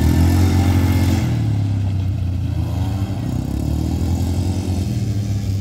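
Two small youth quad bikes (ATVs) running as they ride off, their engines humming with a slightly shifting pitch. The sound is loudest in the first second, then drops back as they pull away.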